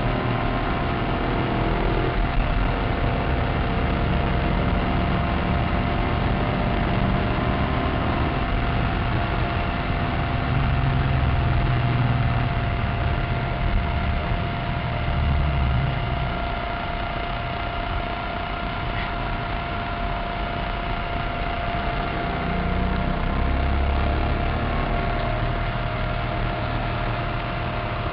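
Maserati Cambiocorsa's V8 engine heard from inside the cabin while lapping a race track, its note swelling and easing as the driver accelerates and lifts through the corners.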